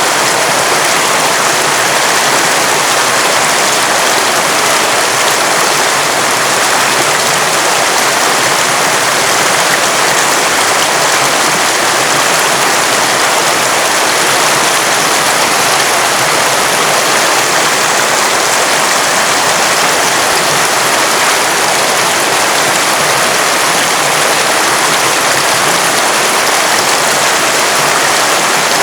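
River water rushing over stones, a steady loud hiss of running water with no breaks.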